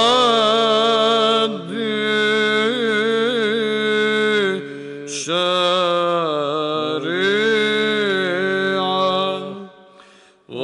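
A solo male voice chants a Byzantine hymn in Arabic in the sixth tone, with melismatic ornaments over a steady low drone (ison). The voice breaks briefly near the middle and fades away near the end.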